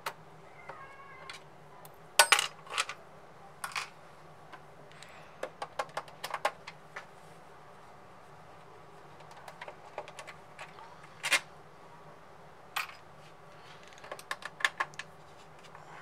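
Small screws and a screwdriver clicking and clinking against the PS5's metal shield plate and plastic case as screws are taken out and handled. The taps come in scattered clusters, loudest about two seconds in and again a little after eleven seconds.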